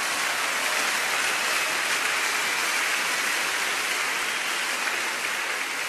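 Audience applauding, a dense steady clatter of clapping that eases off slightly near the end.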